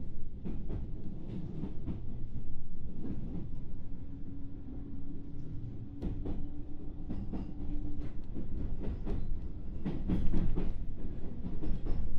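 JR West 221-series electric train running, heard from inside the motor car: a steady low rumble from the wheels and running gear, with irregular sharp clicks and clatters as the wheels pass over rail joints. A steady hum holds for a few seconds in the middle.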